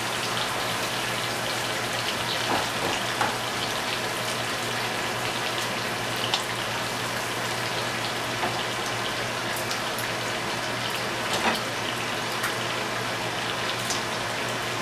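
Butter sizzling steadily in skillets as a rice-and-pasta mix is sautéed and chicken breast fries, with a few light clicks of the spatula against the pan over a steady low hum.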